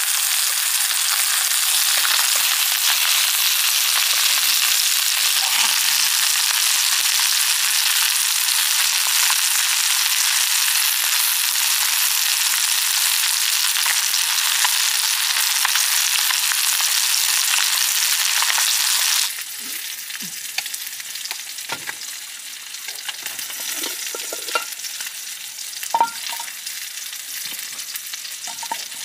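Food frying in a pan, a steady sizzling hiss. About two-thirds of the way through it drops suddenly to a quieter sizzle, with a few light clicks.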